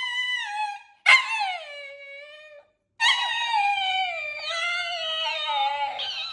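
Alaskan Klee Kai howling and 'talking' in three long, drawn-out calls whose pitch slides down and wobbles. The last call begins about three seconds in and is the longest.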